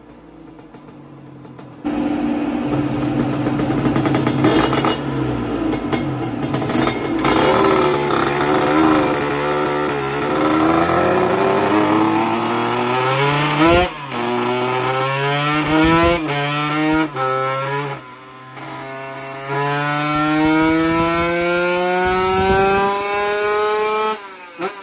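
Drag-race motorcycle engine on a chassis dynamometer, taken to full throttle about two seconds in and revved up through the gears. The pitch climbs, drops briefly at each of several upshifts, then climbs again on a last long pull that cuts off sharply near the end.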